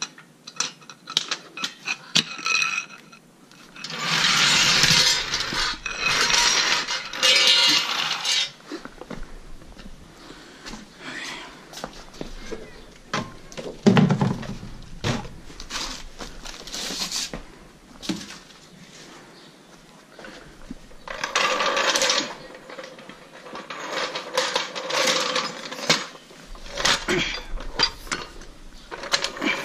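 Metal tools and parts clanking and rattling as they are handled, with two longer stretches of louder rattling and scraping, about four seconds in and again past twenty seconds, and a dull knock near the middle.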